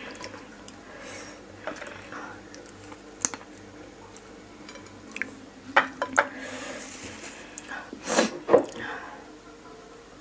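Close-miked eating sounds of a person working through pickled crab: small wet clicks and squishes of mouth, fingers and shell. About eight seconds in come a loud sharp intake of breath and a second, smaller one just after.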